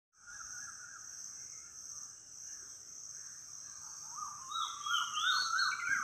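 Nature ambience: a steady high insect drone with birds calling. From about four seconds in, a quick run of repeated bird chirps, about three a second, grows louder.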